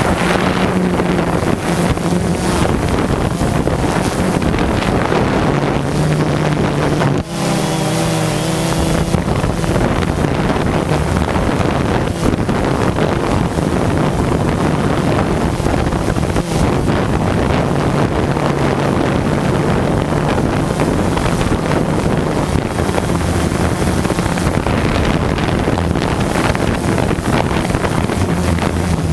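A steady motor hum that shifts slightly in pitch, with heavy wind noise on the microphone.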